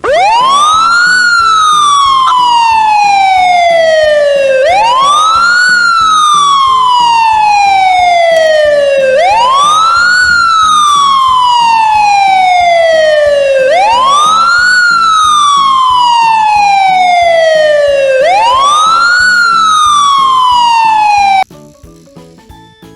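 Siren wailing loudly, each cycle rising quickly then falling slowly, about every four and a half seconds; it cuts off suddenly near the end.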